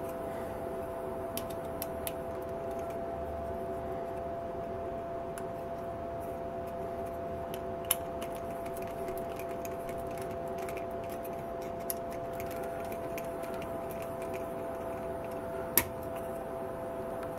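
Small ticks and clicks of 1-inch drywall screws being hand-driven with a screwdriver into 3D-printed ABS plastic parts, and of the parts being handled, with a sharp click near the end. A steady two-tone hum runs underneath.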